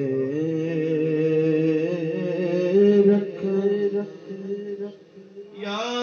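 A man's voice reciting a naat, unaccompanied, drawing out long melodic notes with a slight waver in pitch. The voice drops away about four seconds in and comes back strongly near the end.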